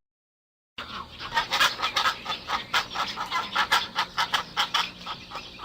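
Pelican calls: a fast series of short, harsh clucking pulses, about five a second, starting about three-quarters of a second in.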